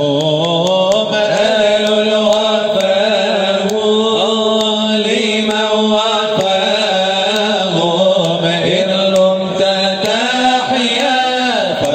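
Unaccompanied male voice chanting an Islamic nasheed in a long, wavering melismatic line over a steady, held low note.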